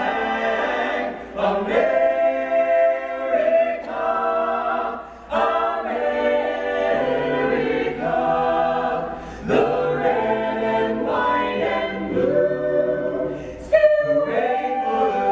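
Mixed a cappella vocal group of eight men and women singing in close harmony, holding chords that break off in short pauses every few seconds between phrases.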